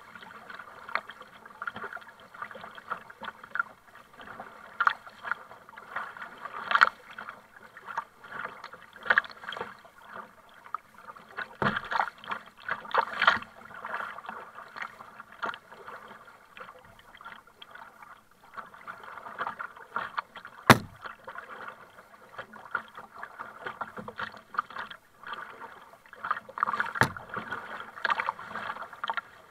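Double-bladed kayak paddle dipping and pulling through seawater, with splashing and water sloshing against the hull of a sit-on-top kayak. A single sharp knock about two-thirds of the way through.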